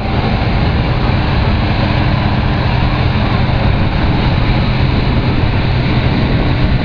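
Diesel farm tractor engine running hard at steady high revs under full load, pulling a tractor-pull sled down the track.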